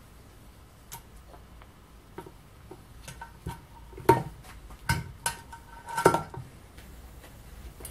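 Clinks and knocks of an aluminium plate and a hand drill being handled and set down on a steel bench top: a handful of sharp strikes, some with a brief metallic ring, the loudest about six seconds in.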